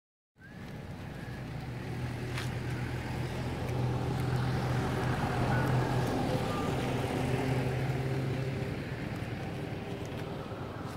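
Steady low motor hum, growing louder over the first few seconds and then easing off towards the end.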